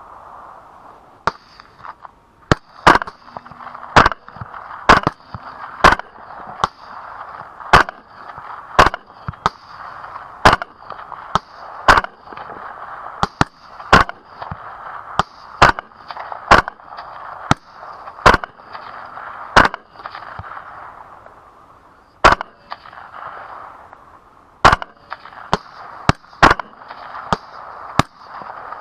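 Suppressed semi-automatic rifle fire from a 6.8 SPC LWRC Razorback II with a Bowers Vers 30T suppressor: a long string of loud sharp shots at about one a second, with a short pause about two-thirds of the way through.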